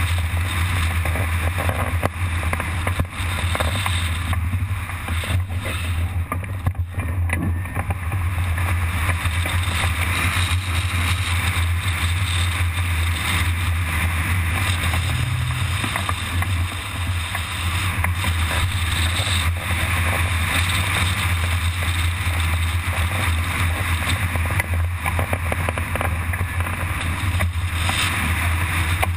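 Steady rush of wind over the microphone of a camera mounted on a hang glider in flight: a deep, unbroken rumble with a hiss above it.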